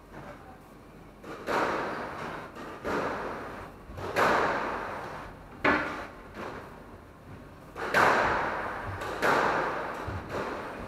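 Squash rally: the ball is struck hard about every second and a half, each sharp hit echoing around the enclosed court before fading.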